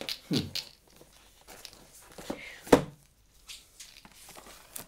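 Packaging being handled and opened: light rustling with a few knocks and clicks, the sharpest and loudest a little under three seconds in.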